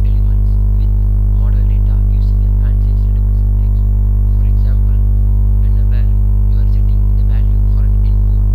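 Loud, steady mains hum in the recording, a low buzz with many overtones that never changes, with faint speech beneath it.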